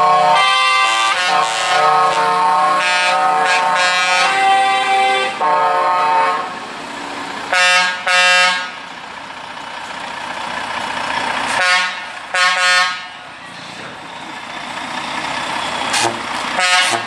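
Truck air horns sounding, several tones together in long blasts for about the first six seconds, then short double toots roughly every four seconds. Between the toots the trucks' engines run as they drive slowly past.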